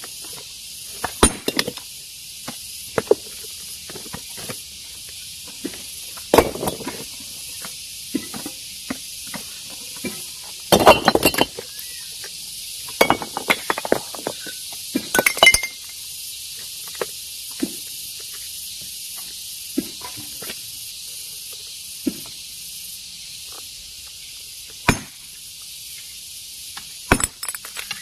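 Irregular sharp clinks and knocks of stone on stone as rock is broken and handled by hand, with a louder flurry a little before halfway. A steady high hiss runs underneath.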